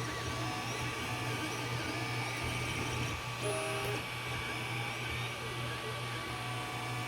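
3D printer running: a steady fan hum, with the stepper motors whining in shifting pitches as the print head moves. A brief held two-note tone sounds just past the middle.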